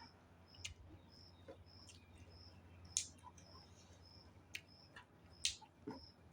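Sharp, scattered eating sounds: mouth and chewing clicks, loudest about 3 and 5.5 seconds in. Behind them a faint, high, short chirp repeats evenly about two or three times a second.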